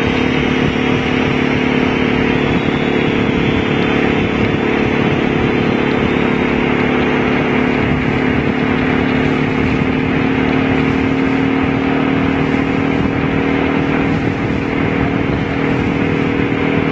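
Honda V-Twin Magna 250's V-twin engine running at a steady pitch while the motorcycle cruises at a constant speed, under a steady rushing noise of wind.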